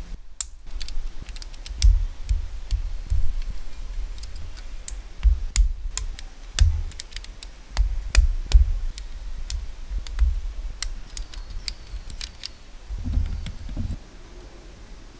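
Plastic building bricks of a Xiaoluban brick tank model being pressed and snapped together by hand: a string of irregular sharp clicks over dull knocks of the model being handled on the table.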